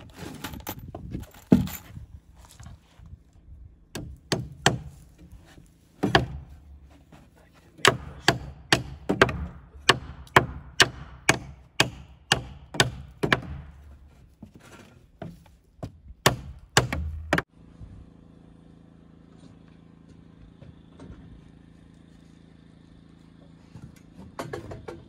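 Hammer driving nails into wooden wall framing: runs of sharp strikes, with a quick even series of about two blows a second in the middle. The hammering stops about three-quarters of the way through, leaving only a few scattered knocks near the end.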